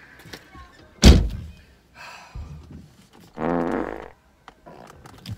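A car door slams shut about a second in, a single heavy thud and the loudest sound here. A couple of seconds later a man lets out a long sigh.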